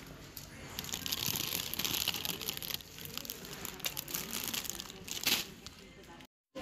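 Plastic crisp packet crinkling as it is handled, heaviest for a couple of seconds about a second in, with one sharp loud crackle near the end before the sound cuts off abruptly.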